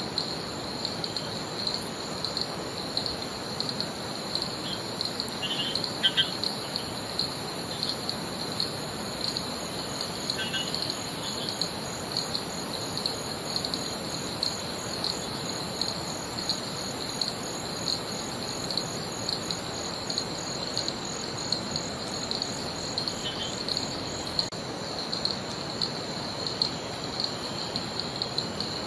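Rainforest insects chirping in a steady, pulsing chorus over a constant hiss, with a few short bird chirps about six and ten seconds in and once more later on.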